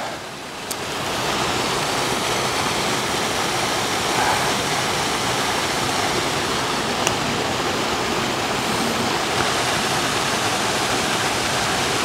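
Waterfall rushing steadily; the rush comes up about a second in and then holds level.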